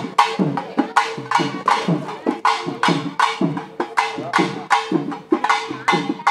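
Pambai and udukkai, Tamil folk drums, beaten in a fast, steady rhythm of about three strokes a second. The pitch bends down after many strokes, over a steady held tone.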